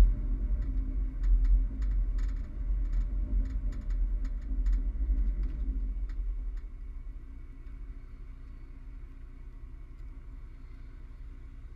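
Toyota Tacoma pickup driving, a low rumble with scattered clicks, dropping after about six and a half seconds to a much quieter low steady hum as the truck eases off or stops.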